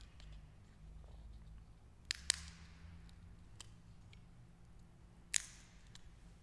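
Three crisp snaps, two close together about two seconds in and one more past the five-second mark, each trailing off briefly in the church's echo: a large altar host (communion wafer) being broken into pieces.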